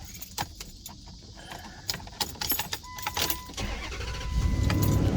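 Keys jangling and clicking, then a steady electronic chime tone comes on about three seconds in. The 2008 Chrysler Aspen's engine starts about half a second later and settles into a running rumble.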